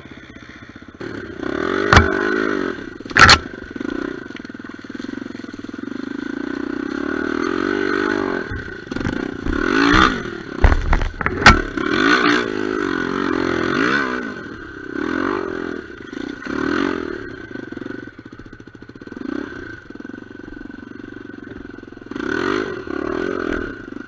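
Honda XR250R dirt bike's single-cylinder four-stroke engine revving up and down while riding over rough, rutted ground, with several sharp knocks and clatter, the loudest near two and three seconds in and again around ten to twelve seconds in.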